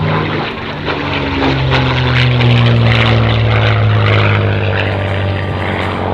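P-51 Mustang's Merlin V12 engine and propeller flying past, a steady drone that slowly drops in pitch as the aircraft goes by.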